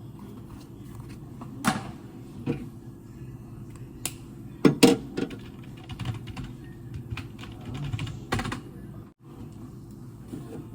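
A few scattered taps on a computer keyboard, sharp separate clicks spread over several seconds, over a steady low hum.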